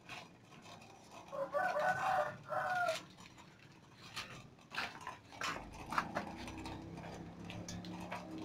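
A chicken calls once, about a second in, for roughly a second and a half, amid scattered light clicks and knocks.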